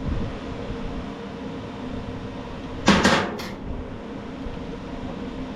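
A quick clatter of two or three knocks about three seconds in, as small hard parts from a mower's wheel drive are handled and set down on a workbench, over a steady fan-like hum.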